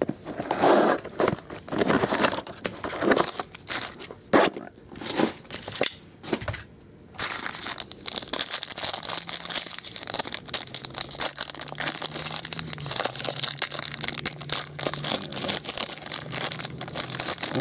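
Plastic wrapping of a trading-card box and pack being torn and handled. Irregular tearing and crinkling for about seven seconds, then continuous crinkling.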